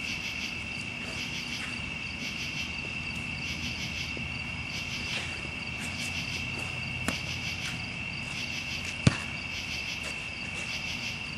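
Crickets chirping in a steady, high-pitched chorus. A couple of sharp knocks cut through it, the loudest about nine seconds in.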